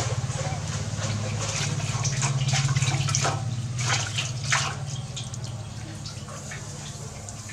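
Water splashing and dripping in a metal basin as hands scoop it over and wash a newborn monkey, in many short irregular splashes. A steady low hum runs underneath, stronger in the first half.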